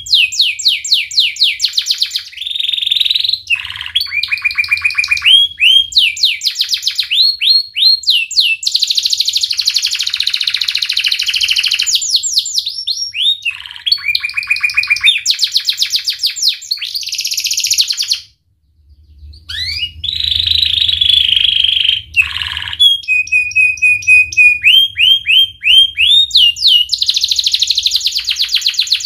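A yellow domestic canary singing a long, varied song of fast repeated trills, rolls and rising whistled notes. It breaks off for about half a second two-thirds of the way through, then goes on.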